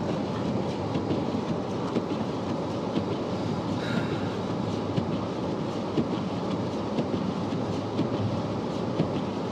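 Steady rumble of a car's tyres and running gear on a snowy road, heard inside the cabin while driving, with a faint tick about once a second.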